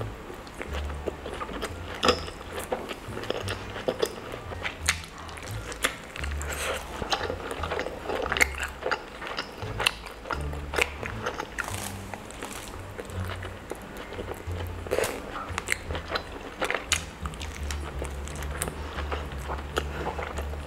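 Close-up eating sounds: wet biting, chewing and crunching with frequent sharp smacks, over background music with a low, steady bassline.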